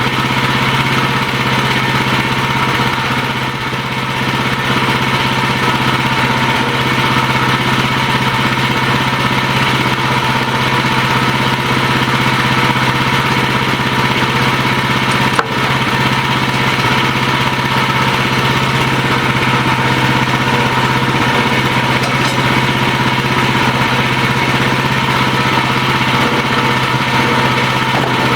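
Wood-Mizer portable sawmill's engine running steadily, with one sharp click about halfway through.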